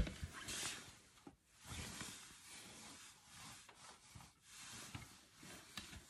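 Faint handling noises as hands move glass jars and amaryllis bulbs: a sharp knock at the very start, then short spells of rustling and a couple of light clicks as a jar is lifted.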